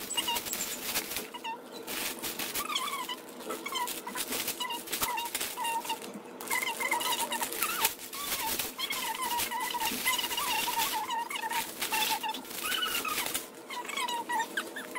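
Plastic shopping bag crackling as things are pulled out of it, under an animal's high, wavering whine that goes on through most of it.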